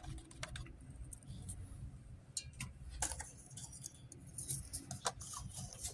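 Faint, irregular clicks, taps and rustles of handling: a wooden stir stick knocking and scraping in a paper cup, with a puffer jacket and its zipper moving.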